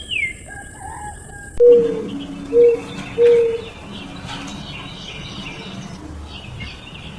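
Dove cooing three short, low notes in the first half, over a steady background of small birds chirping.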